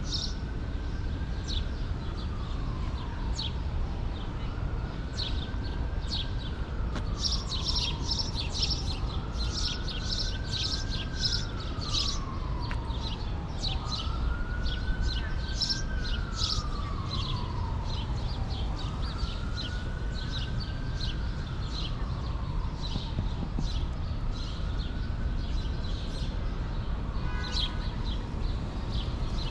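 Small birds chirping in quick, high calls throughout, with a faint emergency-vehicle siren wailing slowly up and down every few seconds until it fades out near the end, over a low steady rumble of city background.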